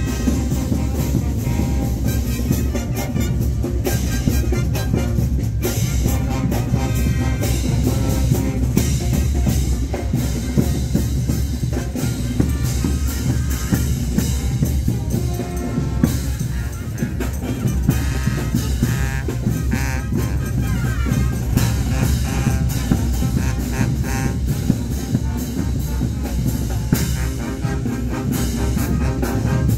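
Brass band with drums playing continuously, a steady beat of bass drum and snare under the brass.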